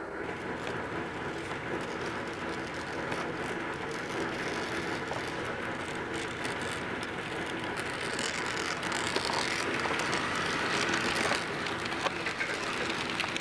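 HO scale model diesel locomotive and freight cars running on sectional track: a steady motor whir with fine rapid clicking of the wheels over the rail joints, a little louder about two-thirds of the way through.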